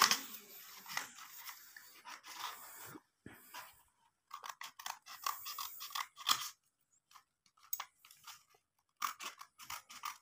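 Scissors cutting paper and thin card in irregular short snips, with brief pauses.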